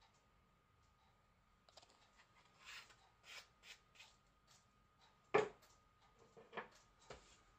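Small plastic acrylic powder jars being handled and set down: soft rustling and scattered clicks, with one sharper click about five seconds in.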